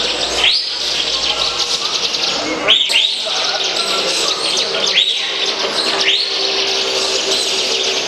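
Many caged songbirds singing at once: a dense, continuous high twittering chorus, broken by repeated rising whistles.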